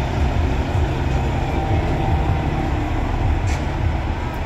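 Semi-truck diesel engines running as the parade trucks roll past, a steady low rumble. There is one short high tick about three and a half seconds in.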